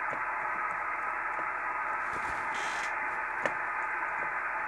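ICOM IC-730S transceiver's receiver hiss from its speaker: steady band noise with the high end cut off, as the radio is tuned for a signal. A faint click about three and a half seconds in.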